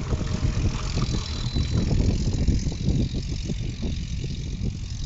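Water sloshing and gurgling in a 100-litre copper cauldron as a wooden paddle stirs biodynamic preparation 500 into a deep swirling vortex, over a steady low rumble. The splashing turns to an uneven gurgle in the second half as the vortex spins on.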